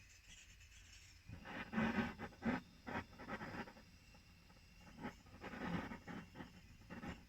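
Irregular scraping and scratching from hand work on a plumbing fitting, in two bouts of short strokes with a pause between.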